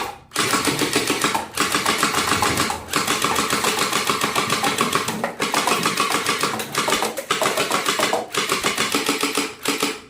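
Toy gun firing in rapid rattling bursts, about seven bursts separated by brief pauses.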